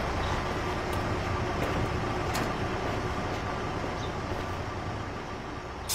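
Steady low rumble of heavy trucks, with a few faint clicks, slowly fading toward the end.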